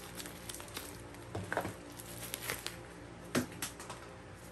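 Hands unwrapping and handling small yellow plastic cases: light crinkling of plastic wrapping and scattered clicks, with a brief squeak about a second and a half in and a sharper click a little after three seconds.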